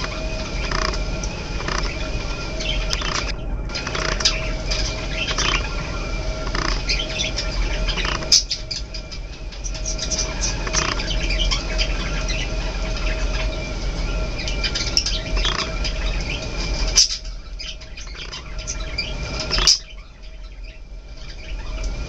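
Budgerigars chirping and chattering in quick short notes over a steady background hum, falling quieter twice near the end.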